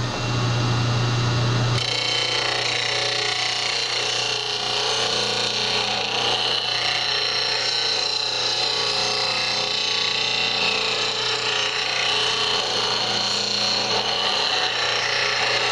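Rikon 8-inch bench grinder running at full speed. About two seconds in, a low-flute spindle gouge meets the wheel, and steady grinding of steel on the stone follows as the tool is rolled across it.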